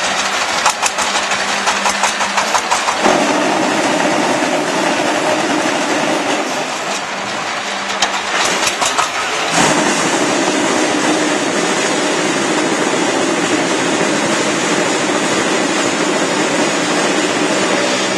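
Forklift engine running under load, its pitch stepping up twice as it revs. There are short bursts of metallic clattering in the first second and again about eight seconds in.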